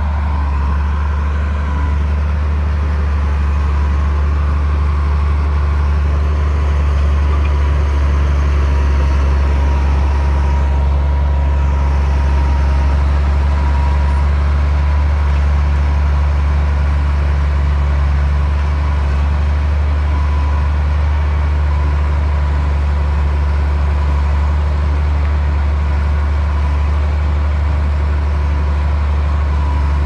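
Komatsu D60P bulldozer's diesel engine running steadily: a loud, even low drone with a thin steady high tone over it, holding constant throughout.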